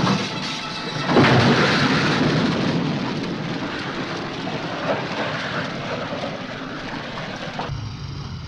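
An overturned lorry exploding: a loud blast about a second in, then a long fading rumble. Near the end the sound drops to a quieter, steady room hum.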